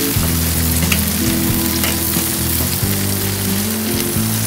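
Bacon strips sizzling steadily on the grate of a charcoal kettle grill, with a few faint ticks as they are turned with tongs. Background music with a stepping bass line plays underneath.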